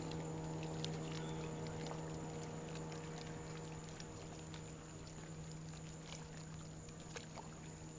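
Boat motor idling steadily on the water, a low hum with fainter overtones that ease off about halfway through, with light water lapping against the hull.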